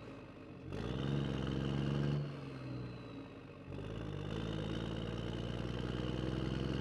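An engine running at a steady pitch in two stretches, the first rising slightly as it starts and cutting off after about a second and a half, the second starting a few seconds in and holding steady.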